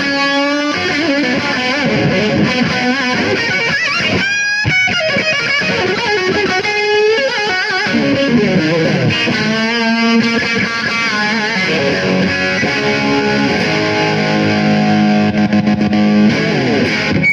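Distorted electric guitar played through a Blackstar HT40 amp's distortion channel, boosted by a Donner Boost Killer pedal: held lead notes with string bends and vibrato. The playing stops at the very end.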